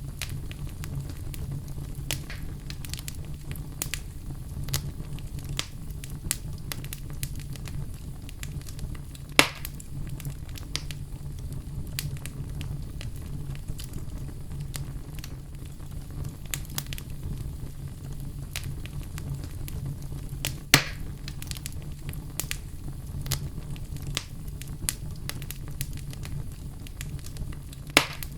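Wood fire in a fireplace crackling: a steady low rumble under frequent small crackles, with three louder sharp pops spaced roughly ten seconds apart.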